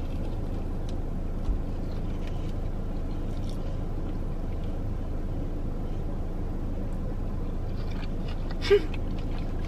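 Steady low rumble inside a parked car's cabin, with faint chewing of a crispy Cheetos-crusted mozzarella corn dog and a short 'mm' near the end.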